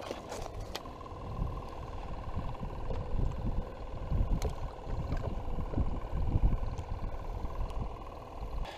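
Low rumble of wind and handling on the microphone, with a few small clicks and rustles as hands work in a live-bait bucket. A faint steady hum runs underneath from about a second in.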